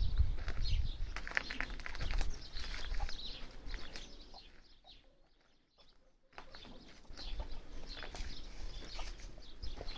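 Chickens clucking quietly, mixed with scattered clicks and scuffs. Near the middle the sound drops to almost nothing for about two seconds, then picks up again.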